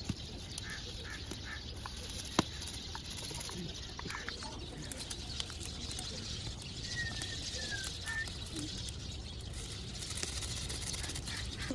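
Faint calls of farmyard fowl, short chirps and a few brief gliding calls, over a steady background hiss, with scattered small clicks and one sharp knock about two and a half seconds in.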